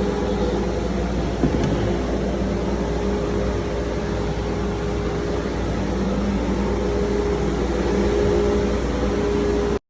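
A machine running steadily with a constant mid-pitched hum over a low rumble, starting and stopping abruptly.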